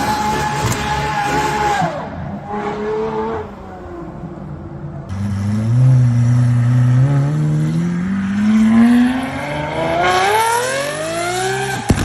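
Supercar engines revving through the exhaust. The first is held high and then falls away about two seconds in. After a cut, another engine accelerates with its pitch climbing steadily, then climbs more steeply near the end.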